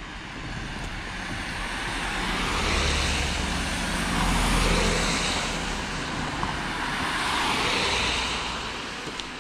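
Cars driving past one after another on a wet road, their tyres hissing through the water, rising and fading three times; the loudest pass comes about halfway through.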